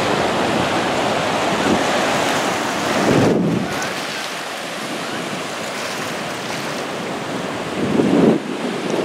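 Ocean surf washing over the shallows, with wind blowing on the microphone. Two louder, low gusts come about three seconds in and near the end.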